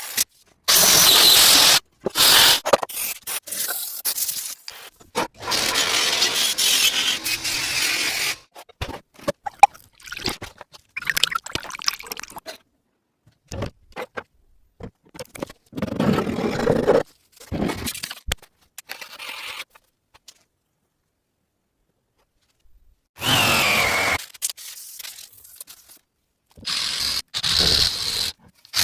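A string of short scraping and abrasive workshop noises on a rusty steel cleaver blade. Each burst of noise cuts off abruptly, and there is a silent gap of about three seconds in the second half.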